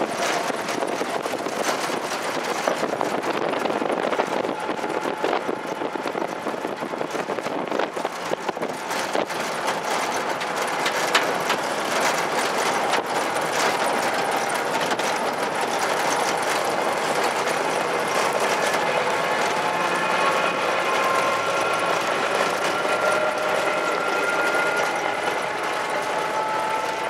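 Hoofbeats of a field of trotting harness horses on a dirt track, with their sulkies rolling behind, making a dense, rapid, steady clatter.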